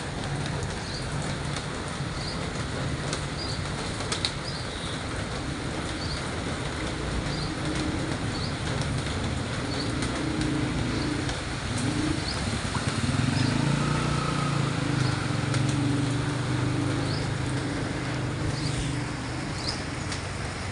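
Heavy rain falling steadily into standing floodwater on pavement, with short high chirps repeating throughout. A low rumble comes in about a third of the way through and grows louder after the middle.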